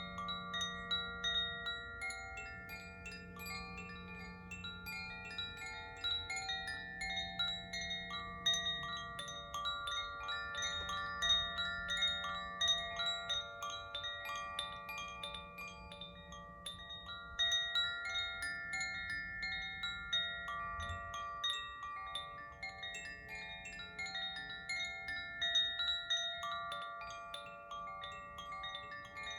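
Koshi chimes tinkling continuously: many quick, overlapping strikes of the tuned rods ringing together, over a low sustained hum from alchemical crystal singing bowls.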